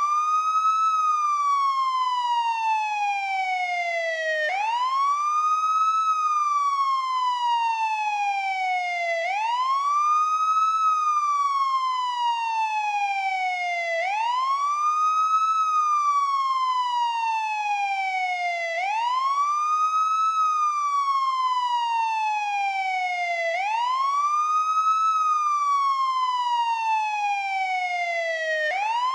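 Police siren in wail mode: a single tone that sweeps up quickly, then slides slowly back down over about four seconds, the cycle repeating steadily about every five seconds.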